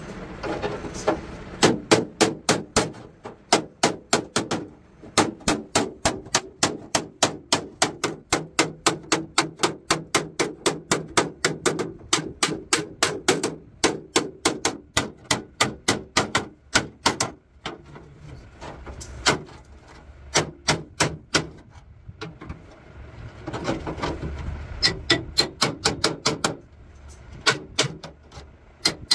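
Hammer striking a chisel along the painted steel edge of a truck cab frame, chipping off old paint: sharp metallic taps about three a second, in runs broken by short pauses.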